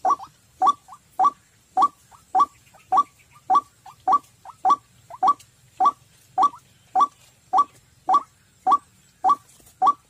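White-breasted waterhen call, a quick rising note repeated evenly about every 0.6 seconds, played from a small speaker as a trapping lure.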